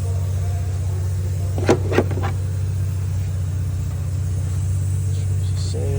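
A steady low machine hum runs throughout, with three quick sharp clicks close together about two seconds in.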